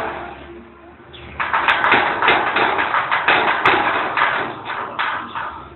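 Metal gate rattling and clanking as a toddler shakes it: a single knock at the start, then a fast run of knocks and rattles lasting about four seconds from a second and a half in.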